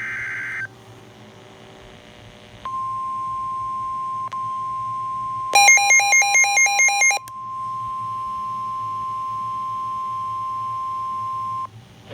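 Emergency Alert System broadcast: the tail of a SAME digital header burst, a short screeching data tone, ends about half a second in. Then the NOAA Weather Radio 1050 Hz warning alarm tone sounds steadily for about nine seconds. About halfway through, a rapid series of louder beeps plays over it for about a second and a half.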